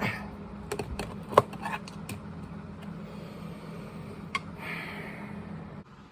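Sharp clicks and knocks of things being handled, several in quick succession in the first two seconds and one more after about four seconds, over a steady low hum that cuts off suddenly near the end.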